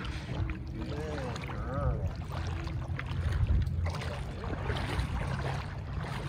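Canoe paddle strokes: the blade dips, splashes and swirls water beside a small canoe, with scattered light knocks, over a steady low rumble. A brief wavering call rises and falls once or twice about a second or two in.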